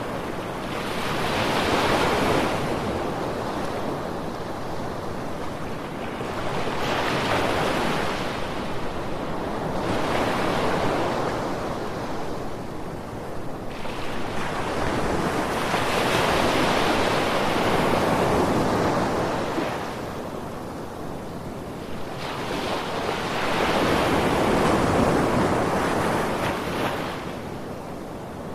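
Ocean surf with waves washing in one after another: a broad rushing sound swells and falls away about every five or six seconds, five surges in all.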